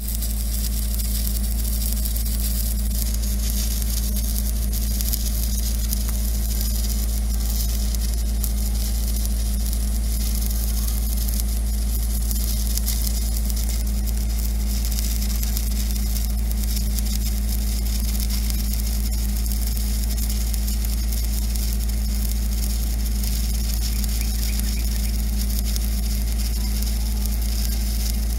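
TIG (gas tungsten arc) welding arc on a steel pipe butt joint, a steady even hiss with a constant low electrical hum underneath, as the root pass is laid with hand-fed filler rod.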